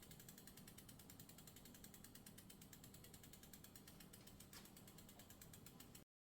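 Faint, steady, rapid clicking of a bicycle's rear freewheel as the wheel spins in the repair stand, ending abruptly near the end.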